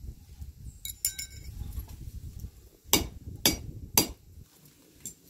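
Hand hammer striking red-hot iron held over the anvil's hardy: three sharp blows about half a second apart, after a short ringing clink of metal about a second in.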